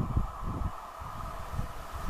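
Gusty wind buffeting the microphone over the faint, steady sound of a steam train drawing away into the distance.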